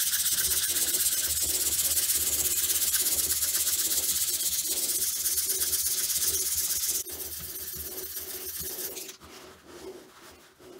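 400-grit sandpaper rubbed in quick back-and-forth strokes over a 3D-printed plaque of Bronzefill, a bronze-filled PLA, smoothing off the rough surface left by coarser sanding. The loud rasping stops suddenly about seven seconds in, followed by quieter rubbing.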